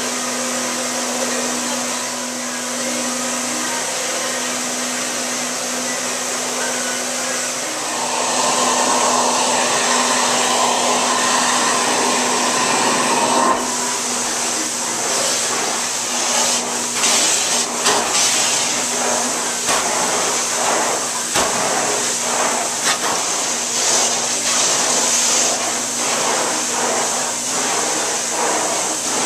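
Carpet-cleaning extraction vacuum running steadily, getting louder about eight seconds in. From about halfway, a hot-water extraction wand is drawn back and forth over the carpet, and the suction sound rises and falls unevenly with the strokes.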